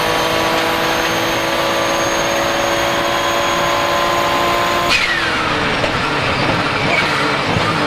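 Porsche 997 GT2 RSR's twin-turbo 3.9-litre flat-six running at steady high revs with a high turbo whistle. About five seconds in, the throttle lifts: a sudden blow-off valve release and the turbo whistle falling away, then the engine runs rougher and uneven off the throttle.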